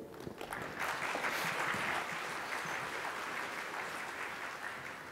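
Audience applauding. It swells within the first second and slowly dies away.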